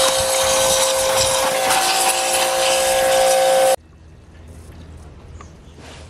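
Pressure washer running, its jet spraying onto a boiled goat skull to blast off leftover tissue: a steady whine over the loud hiss of the spray. It cuts off suddenly about four seconds in, leaving a faint low hum.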